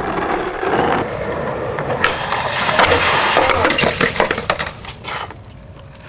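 Rapid crackling, snapping and clattering, loudest from about two to four and a half seconds in, of a skateboarder crashing into brush and branches, then fading away.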